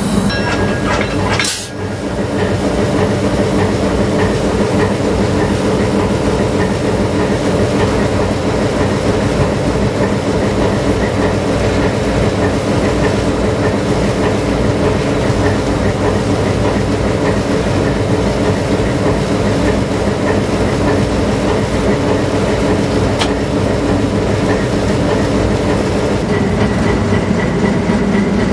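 MLW RS-3 diesel locomotive's ALCO 244 V12 engine running steadily under way, with wheel and rail noise, heard from inside the cab.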